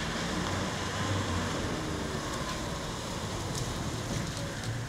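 Isuzu D-Max pickup truck driving past, its engine running with a steady low rumble under a constant outdoor hiss.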